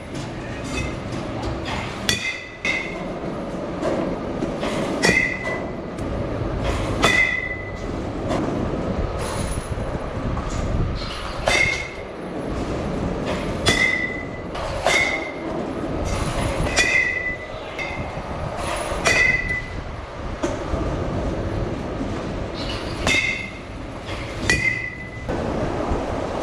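Metal baseball bat hitting pitched balls again and again, each hit a sharp ping that rings briefly, about a dozen hits one to four seconds apart, over a steady background noise.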